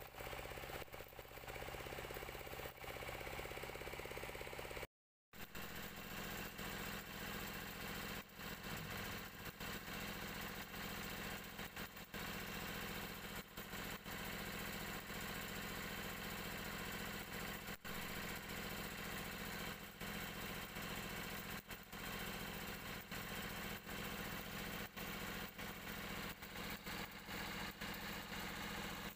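Stick (electrode) arc welding on a steel excavator bucket lip: a steady crackle and hiss from the arc, over the steady drone of an engine running. A brief cut to silence about five seconds in.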